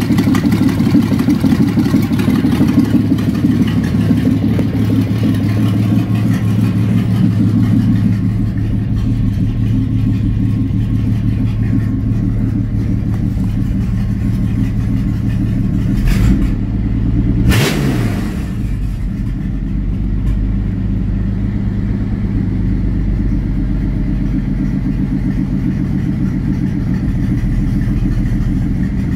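Chevrolet 4.3 L LB4 V6 with Holley Sniper EFI and open, unmuffled headers idling steadily at about 800 rpm. A brief knock is heard about halfway through.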